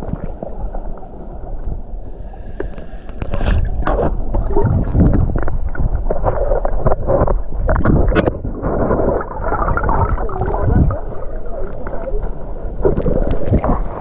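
Water heard through a submerged camera: muffled gurgling and rushing with scattered knocks and clicks, growing louder about three seconds in.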